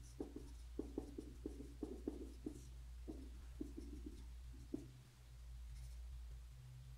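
Marker pen writing on a whiteboard: a run of short, irregular strokes of the tip on the board, thinning out near the end, over a low steady hum.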